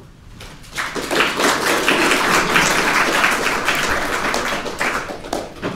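Audience applauding, the clapping rising about a second in and fading out near the end.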